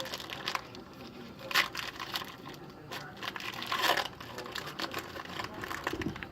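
Foil trading-card pack wrapper crinkling and rustling as it is torn open by hand, with louder crackles about a second and a half in and again about four seconds in.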